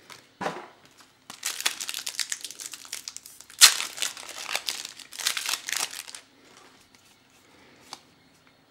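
Foil booster pack of trading cards being torn open and crinkled in the hands: a dense crackle from about a second in until about six seconds, loudest about halfway through. Then near quiet, with one small click near the end.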